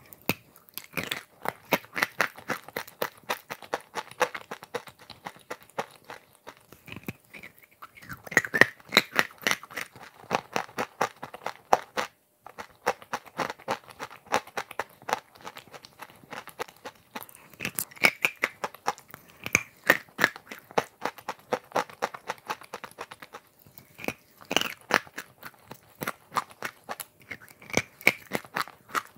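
Close-miked crunching and chewing of chalk coated in clay paste and chocolate pieces: dense crackling crunches in runs, with short pauses between bites.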